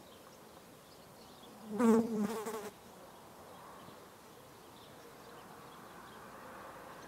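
A flying insect buzzing loudly past for about a second, about two seconds in, its wingbeat pitch wavering as it goes by.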